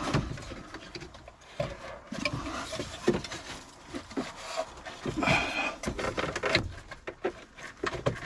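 Stiff plastic wiring plugs being worked loose from a Td5 engine ECU by hand: irregular clicks, knocks and rubbing scrapes as the connectors are wiggled and levered.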